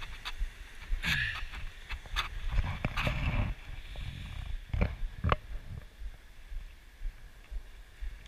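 Footsteps and knocks on dry driftwood logs as people climb over them: a handful of irregular sharp taps, with a low rumble about three seconds in.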